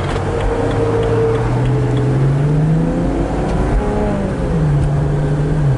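BMW 335i's twin-turbo 3.0-litre straight-six pulling away under acceleration, heard from inside the cabin with road noise. The engine note climbs for about three seconds, then drops as the automatic gearbox shifts up, and holds steady near the end.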